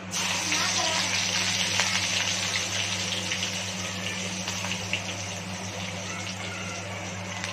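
Chopped green chillies and garlic dropped into hot oil with cumin and fenugreek seeds in a kadhai, sizzling at once and then settling into a steady, gradually softer sizzle.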